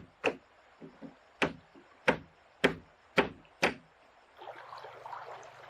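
Six sharp knocks on wood at roughly half-second intervals, like a wooden mallet driving pegs into plank siding. After the knocks stop there is a fainter steady rushing noise with a low hum.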